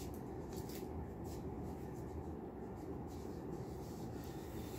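Low, steady room hum with faint, scattered rustling clicks of handling, about half a dozen light ticks spread through it.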